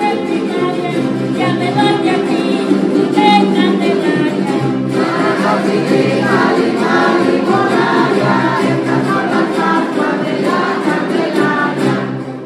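A group of voices singing a song together to strummed jaranas, the small guitars of son jarocho. The music dies away near the end.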